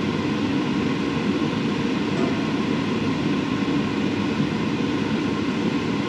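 Kitchen exhaust fan running steadily, a constant even rushing noise.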